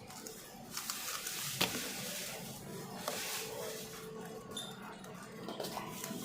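Handling of a plastic speedcube: rustling with sharp plastic clicks, the clearest about a second and a half in and another about three seconds in.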